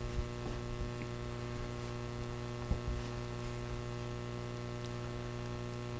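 Steady electrical mains hum, with a couple of faint short knocks.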